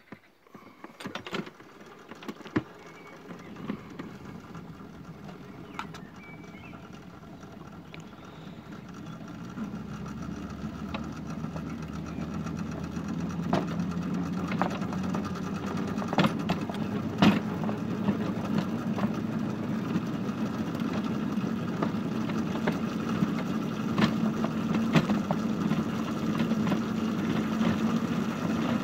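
Miniature railway shunting locomotive's engine running, growing louder over the first dozen seconds and then holding steady, with scattered sharp clicks and knocks.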